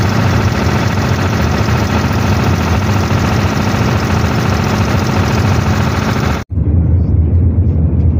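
Engine of an oil spill response power pack running steadily at speed. About six and a half seconds in the sound cuts abruptly, then carries on much the same.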